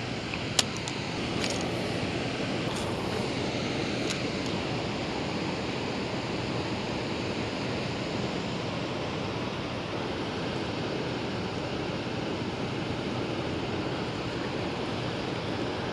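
Steady rush of turbulent river water in the tailwater below a dam with its generators releasing, with a few light clicks in the first few seconds.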